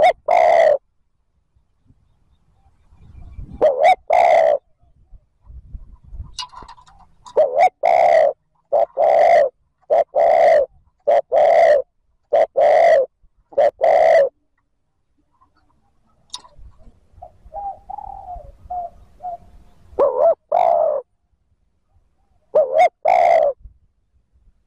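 Spotted dove cooing: loud, low coos repeated about once a second in a steady run through the middle, with a few paired coos before and after and some softer, shorter notes in between.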